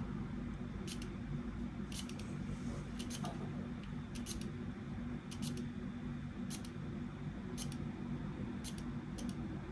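Shimano Ultegra R8150 Di2 electronic rear derailleur shifting itself about once a second, each shift a short motorised snip, as the E-tube error check steps it through its 12 gears. A steady low hum runs underneath.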